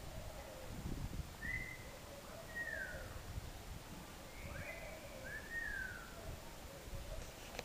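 Several short animal calls, each rising then falling in pitch, spaced about a second apart over a low background rumble.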